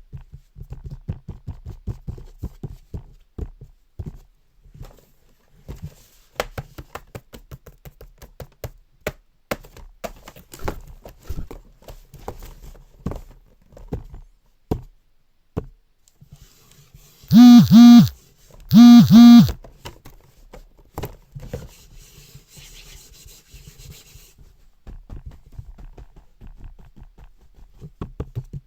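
Homemade sound effects performed by one person: a long run of irregular clicks, taps and knocks. About two-thirds of the way through come two loud yells, distorted by clipping.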